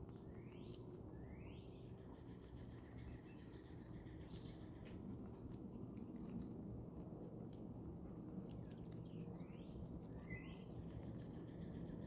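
A songbird singing faintly: two quick rising whistled notes, then a higher held note, heard twice about nine seconds apart. Scattered soft ticks and a steady low background hiss run underneath.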